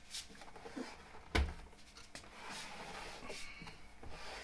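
A heavy portable power station being gripped and turned on a tiled floor: faint rubbing and shuffling, with one dull knock about a second and a half in as the unit or its plastic handle bumps.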